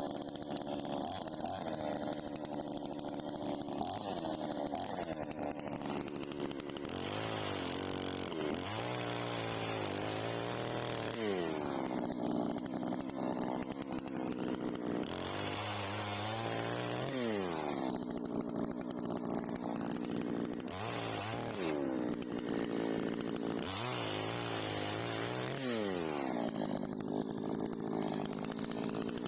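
Chainsaw engine running, its pitch repeatedly dropping and climbing back up every three to four seconds as it is throttled.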